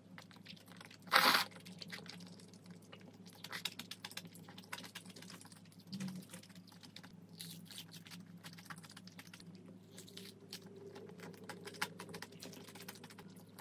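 Close-miked mukbang eating sounds: one loud slurp of noodles about a second in, then chewing of crispy fried chicken with many small crisp crackles and clicks.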